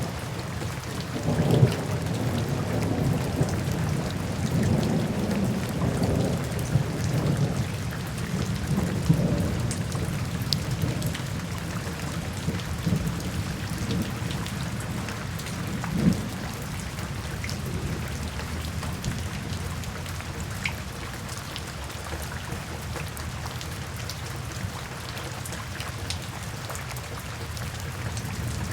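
Steady rain falling, with low rumbles of distant thunder that swell and fade through the first ten seconds or so and a brief louder rumble about sixteen seconds in.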